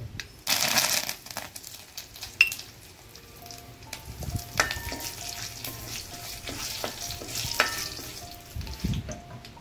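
Curry leaves and dried red chillies hitting hot oil in a metal kadai: a loud burst of sizzling about half a second in, settling into steady frying. Through it come taps and scrapes of a wooden spatula stirring against the pan.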